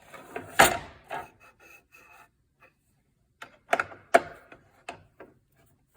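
Hand tools and metal parts of a DeWalt sliding compound miter saw being handled during reassembly: a sharp knock about half a second in, then scattered clicks and taps, with a brief faint squeak in between.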